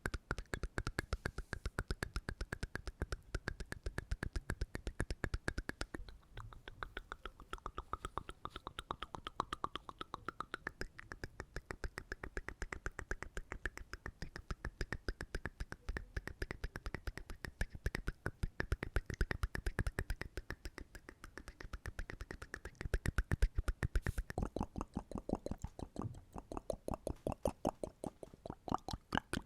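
ASMR mouth sounds made close to the microphone: a fast, continuous run of clicks.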